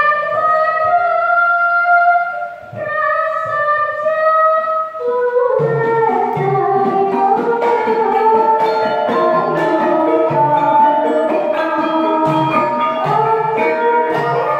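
Javanese gamelan music: a female singer sings a solo line of long held, gliding notes into a microphone. About five seconds in, the full gamelan ensemble of bronze metallophones, gong-chime kettles and drum comes in under her voice with a dense pattern of struck notes.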